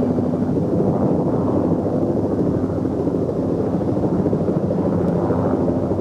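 Helicopter engine and rotor noise, a steady heavy drone, heard from aboard the helicopter.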